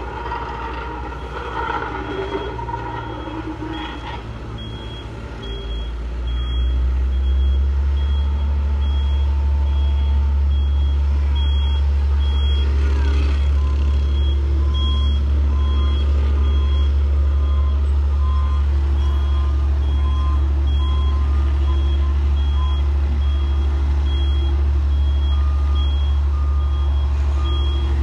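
Heavy construction vehicle's diesel engine running with a steady low rumble that gets louder about six seconds in, while reversing alarms beep in an even repeating pattern: a high-pitched one from about four seconds in, joined by a lower-pitched one about halfway through.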